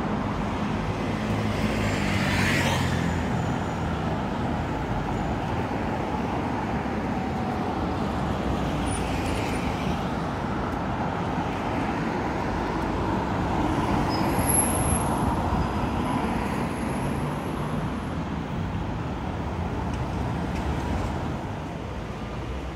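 City road traffic passing on a busy street, a steady rumble of cars and engines. A nearby engine runs low in the first few seconds, and a thin high whine is heard in the middle.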